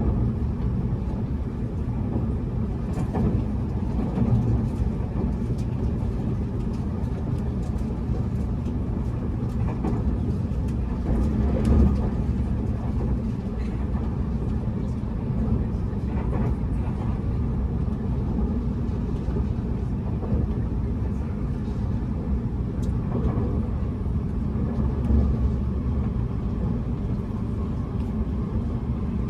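Running noise heard inside a Tobu Spacia X (N100 series) electric train under way: a steady low rumble of wheels on the rails with scattered light clicks, swelling briefly twice.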